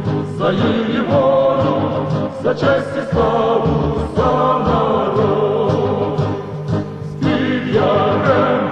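A choir singing a song in Ukrainian, in long held phrases with short breaks about three seconds in and again about seven seconds in.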